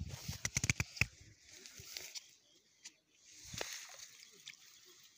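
Handling noise from a Konger keepnet being set out at the water's edge: a quick run of clicks and knocks in the first second, then soft rustling, and one more knock about three and a half seconds in.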